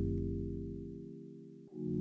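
Film score of sustained low keyboard chords: one chord fades steadily down, and about 1.7 s in a new chord comes in abruptly at full level.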